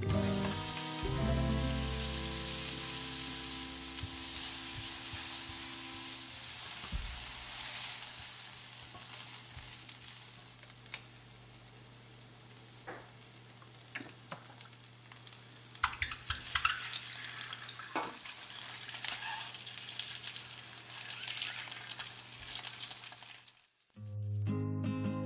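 Onion and then sliced garlic sizzling in hot oil in a Neoflam Fika frying pan, with a few sharp taps and scrapes of the spatula in the second half. The sizzle cuts off abruptly near the end.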